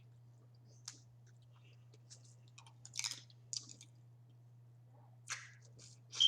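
Close-miked eating of crawfish: scattered short crackles and clicks of shells being cracked and peeled, with wet chewing, loudest about three seconds in and again near the end. A steady low electrical hum runs underneath.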